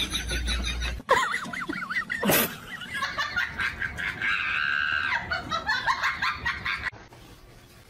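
People laughing in bursts, with a long high held cry about four seconds in; it cuts off abruptly near the end.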